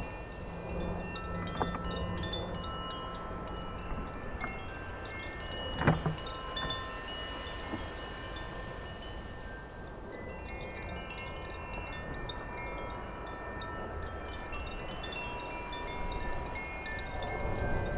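Wind chimes ringing in a breeze, many overlapping tones at different pitches, with low wind rumble on the microphone. A single knock about six seconds in.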